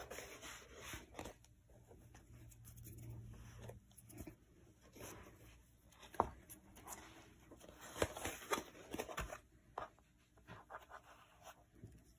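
Faint, irregular rustling and scraping of felt and fabric being pressed and handled, with a few light clicks and taps.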